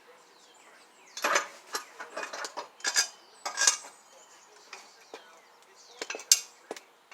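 Irregular sharp metal clinks and clanks from a socket and hand tools working on a mower deck's blade bolt. There is a cluster of clinks about a second in and a few more near the end.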